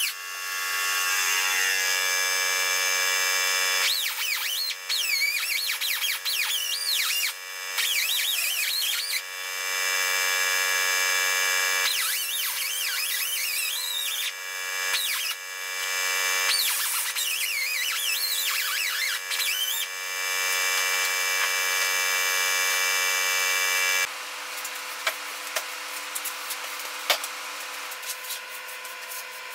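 Handheld cut-off wheel slicing through the rusted steel bottom of a 1963 Chevy C10 door skin. It runs as a high whine in several long passes with short breaks, the pitch wavering into squeals as the disc bites. About 24 seconds in the cutting stops, leaving a quieter steady hum and the scrape of a push broom sweeping the floor.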